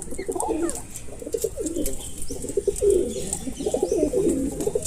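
Birds calling with low, warbling, cooing calls repeated one after another, with faint light clicks above them.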